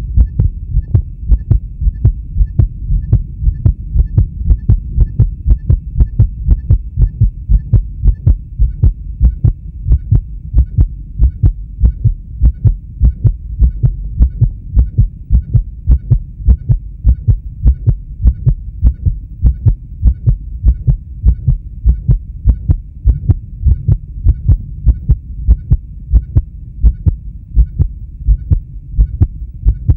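A man's heartbeat: an even, steady rhythm of low thuds.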